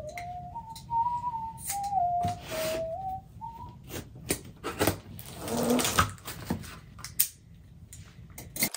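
A man whistling a short wandering tune for about four seconds, then the clicks, scrapes and rustles of a cardboard shipping box being slit open along its taped seam and its flaps pulled back.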